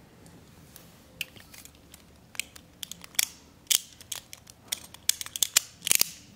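Small sharp clicks and ratcheting from the parts of a Beyblade Burst top being fitted and locked together by hand. The clicks start about a second in and come thicker and louder toward the end.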